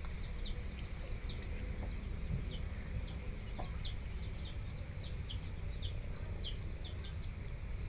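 Birds cheeping in the background: short, high notes that fall in pitch, repeating irregularly about two or three times a second, over a low steady rumble.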